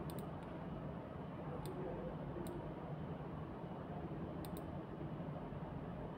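A computer mouse clicking now and then, with a quick double click about four and a half seconds in, over a steady low room hum.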